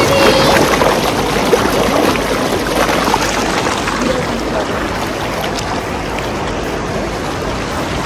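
River water rushing in a steady, loud, even roar. Faint voices are mixed in near the start.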